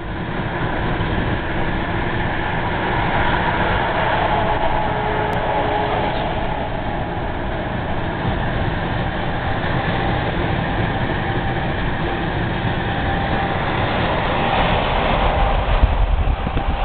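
Steady road noise heard from inside a car's cabin at highway speed: tyre roar, engine and wind. It grows a little louder near the end as the car closes right up behind a lorry's trailer.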